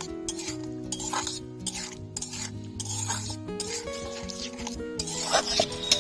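Metal spatula scraping and stirring pineapple chunks in a sizzling metal wok, with repeated scrapes and clinks that get louder about five seconds in. Soft background music with held notes plays underneath.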